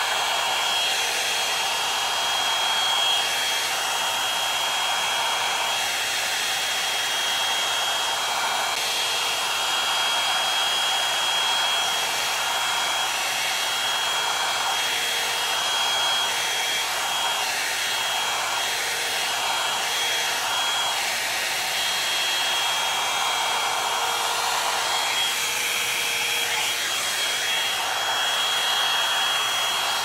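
Revlon One-Step Volumizer hot-air brush running on its fan, a steady, loud rush of air with a high whine over it, as it dries and styles hair wound around the brush.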